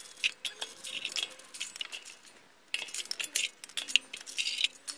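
Steel wheel wrench spinning lug nuts off a car wheel: rapid metallic clicking and clinking in two runs, with a short pause around halfway.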